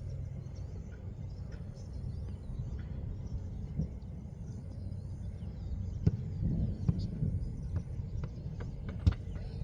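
Faint birds chirping over a steady low rumble, with a few sharp clicks about six and nine seconds in.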